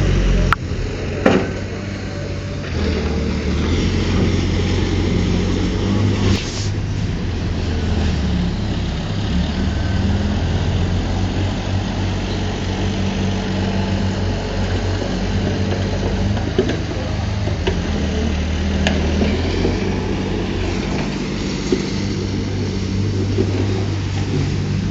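Heavy diesel engine of earthmoving machinery running steadily, with a few sharp knocks in the first seconds and again around six seconds in.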